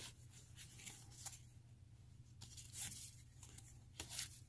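Faint rustling of board-game cards being handled, with a few soft brushing strokes scattered through.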